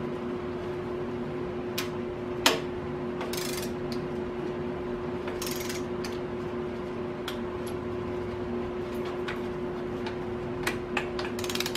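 Click-type torque wrench ratcheting in short bursts, with scattered single ticks, as intake manifold bolts are snugged down in sequence on the first light pass, not yet at full torque. A steady hum runs underneath.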